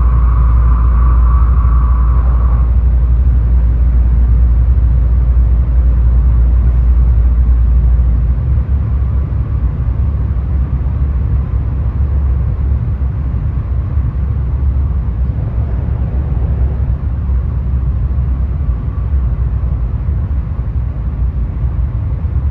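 Running noise of a Tokaido Shinkansen train heard from inside the passenger cabin: a steady deep rumble with a hum that fades out about two seconds in. The rumble eases somewhat about eight seconds in.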